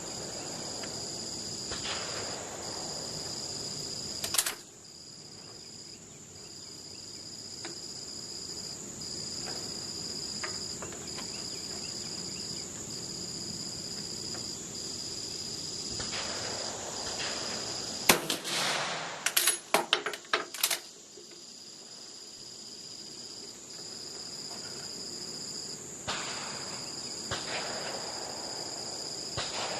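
Two rifle shots from an Austrian M1888/95 firing reduced cast-bullet 8x50R loads, about 4 seconds in and again about 18 seconds in. The second shot is followed by a quick run of metallic clacks as the straight-pull bolt is worked. Insects chirr steadily underneath, one of them in an even pulsing rhythm.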